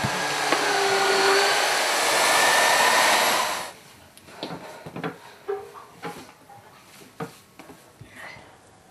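Handheld electric paddle mixer running in a steel pot of crumbled sheep's cheese for bryndza, a steady motor whine with the churning of the cheese, which stops about three and a half seconds in. Then scattered soft knocks and thuds as the cheese is handled by hand.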